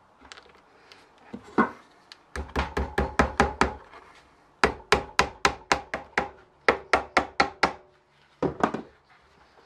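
Hammer tapping tacks through a vegetable-tanned leather shoe upper into a shoe last while lasting a sneaker. The taps come in three quick runs of about six or seven a second, with a brief pair near the end.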